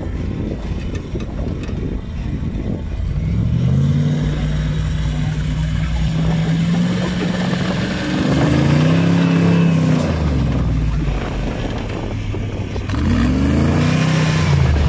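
Off-road 4x4 buggy's engine working hard under load as it crawls through a dirt hole: a steady engine note that revs up and drops back twice, about halfway through and again near the end.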